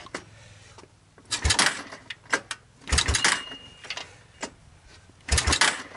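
1986 Honda TRX200SX's single-cylinder four-stroke engine being pull-started with its recoil rope, three pulls with a rush of cranking and low thumps each time, turning over but not firing.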